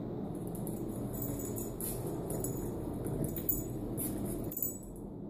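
Metal tags on a small dog's collar jingling in quick irregular rattles as the dog lunges and turns, over a steady low hum.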